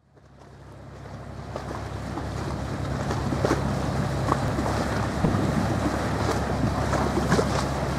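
Boat diesel engine droning low and steady, with wind and water noise over it; the sound fades in from silence over the first few seconds.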